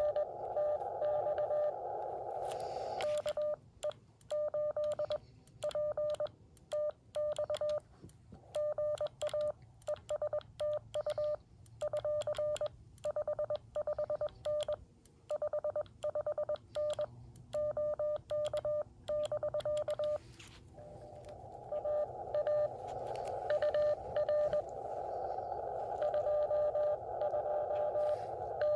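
Morse code (CW) beeps from a Xiegu X6100 transceiver: a single mid-pitched tone keyed in dots and dashes. For the first three seconds the code comes through a narrow band of receiver hiss. Then for about seventeen seconds the keyed tone alternates with quiet gaps, as a transmit sidetone does. About twenty seconds in, the hiss returns with incoming code.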